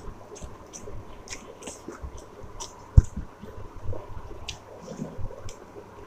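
Close-miked eating: soft wet squishing and chewing of rice and curry, with scattered small clicks, and one sharp knock about three seconds in.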